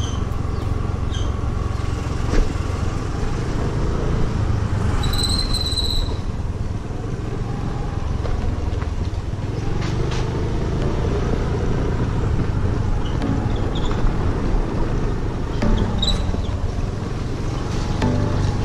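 Honda Activa scooter's small engine running while its tyres rumble over a rough, broken unpaved road, with occasional jolts. A brief high-pitched tone sounds about five seconds in.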